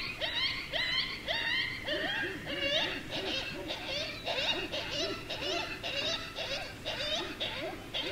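A chorus of short animal calls, overlapping and repeated several times a second, many of them rising or arched in pitch.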